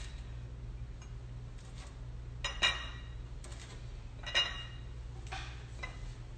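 A few light clinks and knocks of a metal baking sheet and a ceramic plate as baked pastries are lifted off the sheet and set on the plate, over a steady low hum.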